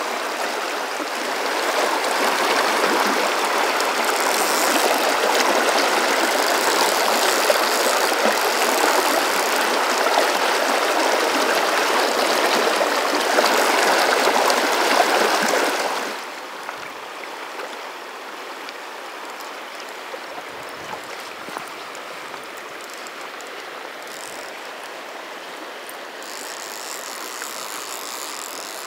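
River current rushing over a riffle around a wading angler, a steady splashing wash. About halfway through it suddenly drops to a quieter, duller rush.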